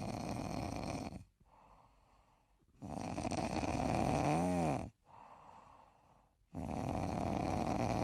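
A cat snoring: three long, rasping snores about three and a half seconds apart, with fainter breaths in between. A brief whistle rises and falls in the middle snore.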